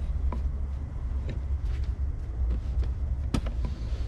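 Small stainless-steel hardware being handled: a few light clicks and one sharper metal knock about three seconds in, over a steady low rumble.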